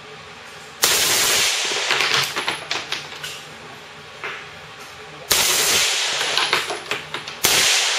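Fully automatic gunfire in three bursts: the first about a second in, the second about five seconds in, the third near the end. Each burst is a dense run of shots lasting about a second, trailing off into scattered shots and echo.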